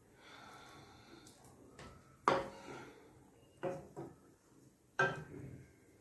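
Wooden spatula stirring soup in a kadhai, with a soft stirring noise at first, then knocking against the pan three times, about a second and a half apart.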